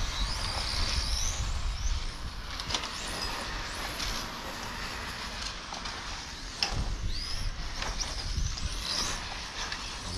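1/8-scale electric on-road RC cars running on the circuit: high-pitched motor whines rise and fall as the cars accelerate and pass, over a steady hiss. A sharp click comes about two-thirds of the way through.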